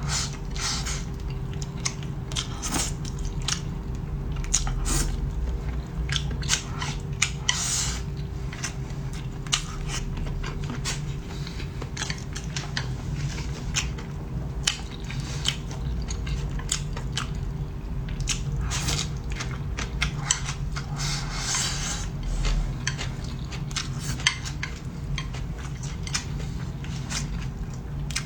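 Close-up eating sounds: chewing and biting, with many short clicks and crackles from the mouth and from chopsticks against a bowl, over a steady low hum.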